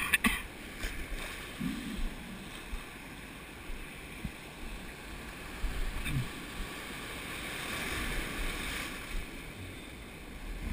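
Ocean surf churning and washing around a camera held at the water's surface, with water sloshing against it. A few sharp knocks right at the start, and a swell of rushing water about eight seconds in.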